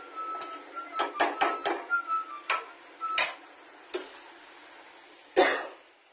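Steel spatula knocking and scraping against a steel kadai while stirring vegetables: a quick run of clinks, then a few single knocks, and a louder knock near the end.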